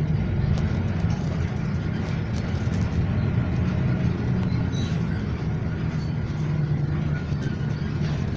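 Moving bus heard from inside the cabin: steady low engine rumble with road and tyre noise as it drives along the street.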